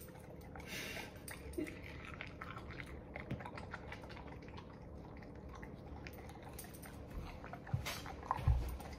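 Dog chewing and mouthing a piece of strawberry: soft wet smacking and small clicks from the mouth, with a couple of dull knocks near the end.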